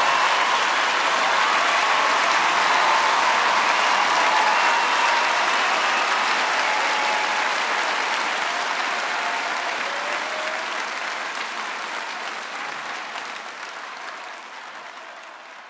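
Large concert audience applauding at the end of a song. The applause is steady at first and then fades out gradually over the second half.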